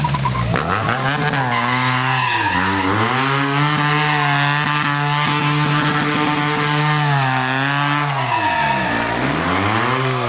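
BMW F800R stunt motorcycle's engine revving and held at high revs for several seconds. The revs dip about a third of the way in and again near the end, then climb back up.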